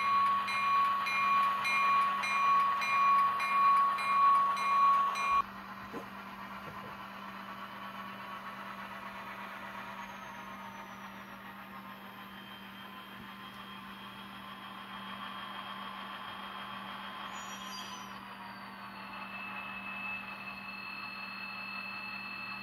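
ESU LokSound decoder in an N scale Kato SDP40F playing diesel locomotive sounds through a tiny 11x17 mm speaker. A horn blows over a bell ringing about twice a second, and both cut off about five seconds in. After that the quieter diesel engine sound runs steadily as the model moves along the track.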